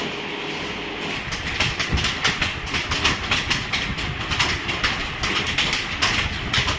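Fast typing on a computer keyboard: a quick run of key clicks, several a second, starting about a second and a half in over a steady background hiss.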